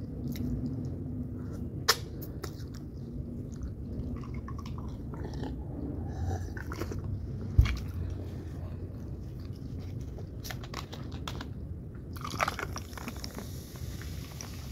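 Chewing and wet mouth clicks of someone eating crinkle-cut French fries dipped in green sauce. A single low knock comes about halfway through, and denser clicking and rustling near the end.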